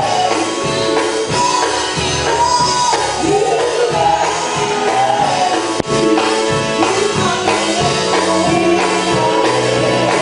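Gospel vocal group singing live in harmony, backed by a band with drums.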